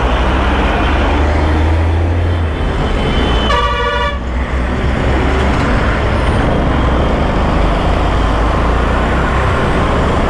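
Motorcycle riding along a highway among trucks: steady engine and road noise, with a vehicle horn honking once, for under a second, about three and a half seconds in.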